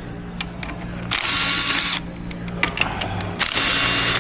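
Cordless power tool, like an electric ratchet or drill, spinning bolts out of an automatic transmission in short bursts: two runs of under a second each, about a second in and near the end, with small metal clicks and handling sounds between them.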